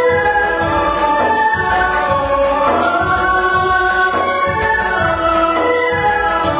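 A song with singing over instrumental accompaniment and a steady beat.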